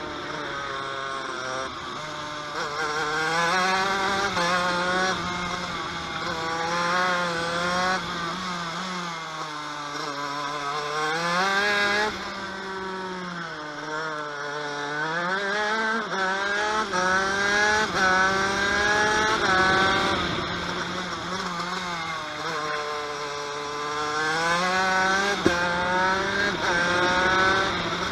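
TM KV92 125cc two-stroke shifter kart engine at racing pace, its revs climbing in steps through upshifts and falling sharply under braking and downshifts, several times over.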